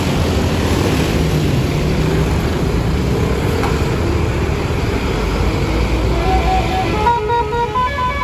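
A large bus's diesel engine running in passing traffic. Near the end its multi-trumpet telolet basuri horn plays a short melody of stepped notes.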